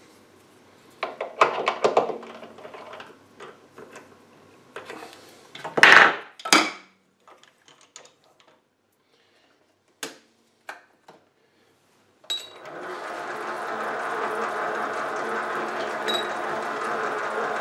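Metal clinks and knocks as the aluminium workpiece is turned around and refitted in the chuck of an SC2 mini lathe, the loudest two knocks about six seconds in. About twelve seconds in the lathe is switched on with a click and its spindle runs steadily.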